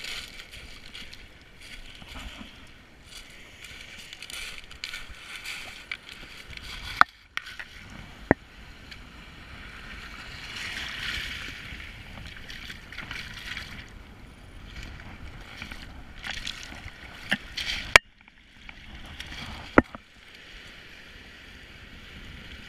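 Shallow river-mouth water washing and sloshing over shingle, swelling briefly midway while a landed kahawai is handled in the shallows. Four sharp knocks stand out: two close together near a third of the way in, and two more near the end.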